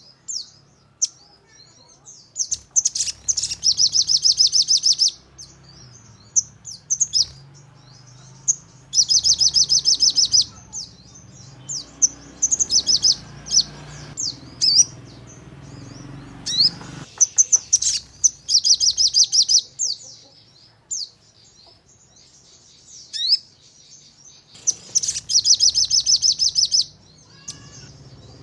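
Crimson sunbird (sogon) singing: four rapid, high trills of fast repeated notes, each about two seconds long, separated by sharp single chirps. This is the rapid-fire 'nembak' song used as a lure to spur other sogon to sing.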